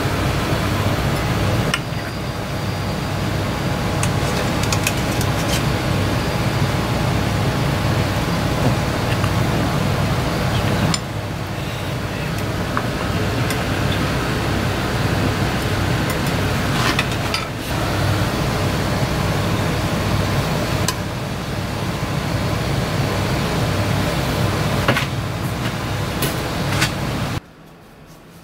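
Steady, loud kitchen noise: a low mechanical hum with hiss, broken now and then by sharp clinks of a metal ladle against the pan and plate. It drops suddenly to a faint hush near the end.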